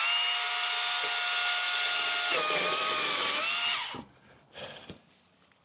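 Cordless power tool's electric motor running at a steady whine. Its pitch drops slightly and wavers from about two seconds in, as if under load, and the motor stops just before four seconds.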